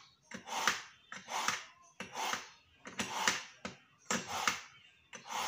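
Kitchen knife drawn again and again through a handheld knife sharpener: a rasping scrape about every 0.8 seconds, six or seven strokes, honing the blade sharp.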